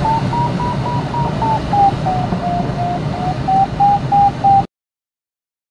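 Glider's audio variometer beeping rapidly, its pitch rising, falling and rising again as the climb rate changes while circling in a thermal; a beeping tone of this kind signals lift. Steady cockpit air noise runs underneath, and everything cuts off suddenly about a second before the end.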